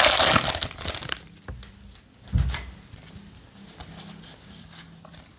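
Foil trading-card booster pack crinkling and tearing open in the hands, loudest in the first second. A short low thump comes about two and a half seconds in, followed by quiet rustling as the cards are handled.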